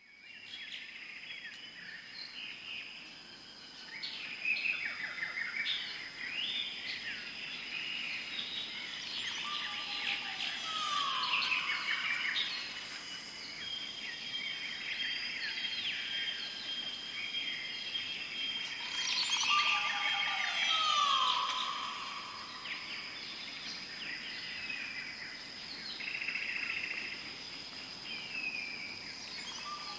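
Several songbirds chirping and singing over a steady high tone. A descending whistled call recurs about every nine seconds.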